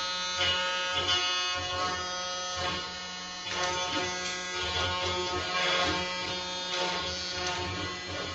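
SilverBack 6060 benchtop CNC router carving a wood board: the spindle runs with a steady whine of several tones while the bit cuts through the wood, the cutting noise rising and falling as the gantry moves.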